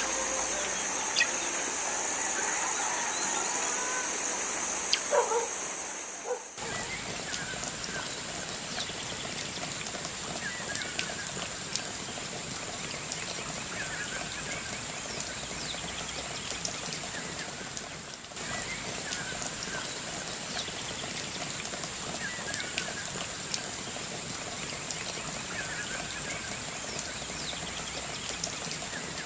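Rice-field ambience after rain: a steady high-pitched insect drone, with a short falling animal call repeating every few seconds, over a haze of dripping water. The sound changes abruptly twice, about six seconds in and again past the middle.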